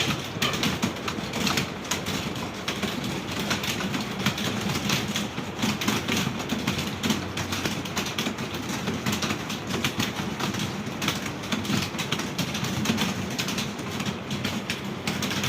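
Dense, continuous clatter of many computer keyboards typed on at once by a roomful of students taking a typing test, the keystrokes overlapping into a steady rattle.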